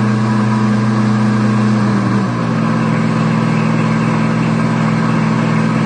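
Pampered Chef Deluxe Cooking Blender motor running on its alternative-milk program, blending soaked cashews and water. It makes a steady hum that drops slightly in pitch about two seconds in.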